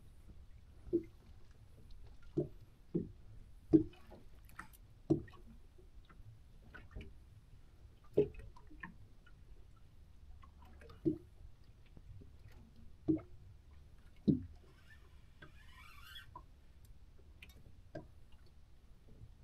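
Water slapping against the hull of a small open boat: about a dozen short, irregular knocks, one every second or two, over a low steady rumble.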